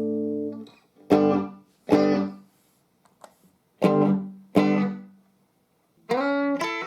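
Electric guitar played through a VOX valve combo amp with EL84 power valves. A held chord is cut off under a second in, then four strummed chords in two pairs ring out and fade, and about six seconds in a quick run of picked notes begins.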